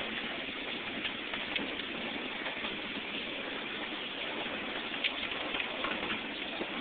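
Steady rattling rush of a 12-inch gauge miniature train's cars rolling along the track, with a few light clicks from the wheels over the rails.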